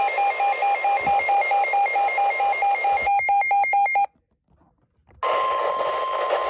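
Weather radio alert: rapid, evenly repeated electronic beeping that stops about four seconds in. After a second of quiet, the steady single-pitch NOAA Weather Radio 1050 Hz warning alarm tone begins, the signal that a warning message follows.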